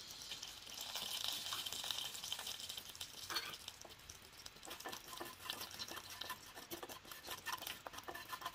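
Cumin seeds sizzling in hot oil as they are tempered: a steady fizz for the first few seconds. From about three seconds in come scattered crackles and ticks as a wooden spatula stirs the seeds around the pan.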